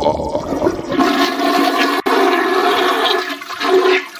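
The music's beat stops about a second in and is replaced by a loud, steady rushing, water-like noise with a few held tones running through it, which thins out near the end.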